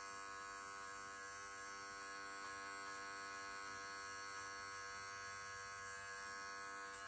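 Wahl Bravura 5-in-1 pet clipper running steadily with a constant electric hum while its blade trims the edge of a dog's ear.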